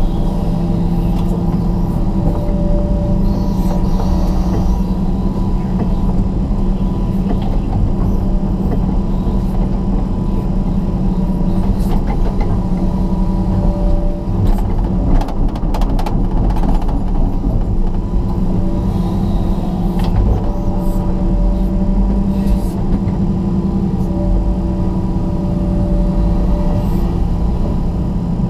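John Deere 200LC excavator's diesel engine and hydraulics running steadily, heard from inside the cab while it digs and loads. A higher whine comes and goes several times as the machine works, with a few knocks about halfway through.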